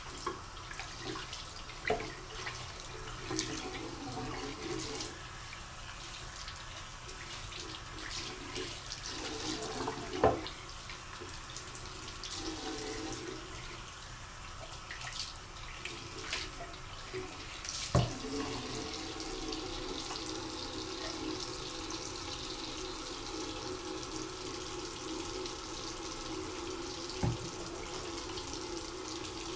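Tap water running from a bathroom faucet into the sink and splashing over a clear plastic 3D-printer resin vat as it is rinsed, with a few sharp knocks as the vat is handled.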